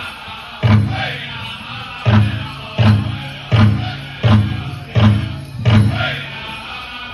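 Powwow drum struck in unison by a drum group: seven heavy, ringing beats, the first on its own and then six more evenly spaced, a little under a second apart.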